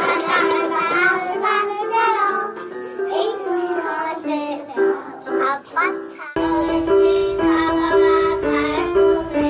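A group of young children singing a song together to piano accompaniment. The sound changes abruptly about six seconds in, to another stretch of the same singing and piano.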